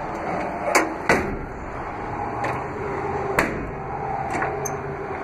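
Utility-bed compartment doors being swung shut and the T-handle latch worked. It gives a series of sharp clacks and clicks, the two loudest about a second in and about three and a half seconds in, with smaller clicks between and after.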